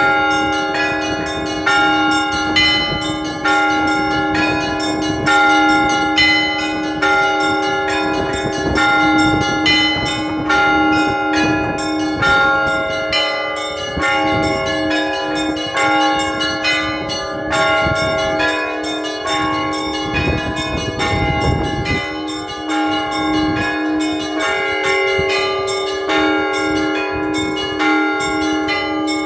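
Orthodox church bell ringing by a single ringer: a deep bell struck again and again at a steady beat under quick, changing patterns of smaller, higher bells.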